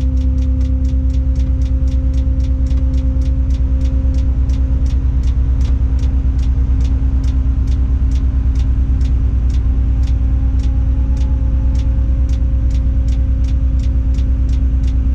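Tadano 180G-5 all-terrain crane's engine and hydraulics running steadily, heard from inside the operator's cab during a lift. A fast, regular ticking of about three strokes a second runs over the drone.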